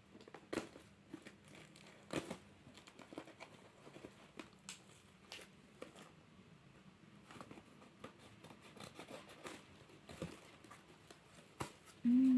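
Packaging of a baby carrier being torn open and handled: irregular crinkles, rustles and crackles. A short low hum comes near the end.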